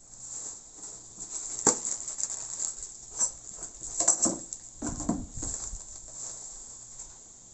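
Bubble wrap and plastic packaging rustling and crinkling as it is handled, in irregular bursts, with a sharp click about a quarter of the way in and a soft thump around the middle.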